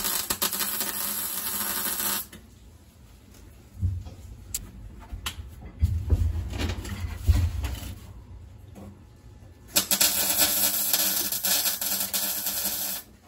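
MIG welder running two short welds on a sheet-metal floor pan, a steady crackling sizzle for about two seconds at the start and again for about three seconds near the end. A few low knocks come between the welds.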